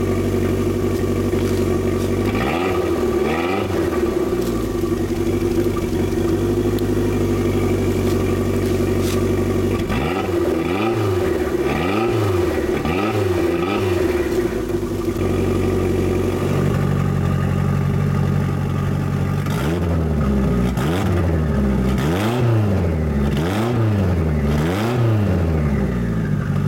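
Toyota MR2 Turbo's 3S-GTE turbocharged four-cylinder idling on what is most likely its stock exhaust, revved in three groups of quick throttle blips: two, then four, then about six, each rising and falling in pitch and dropping back to idle.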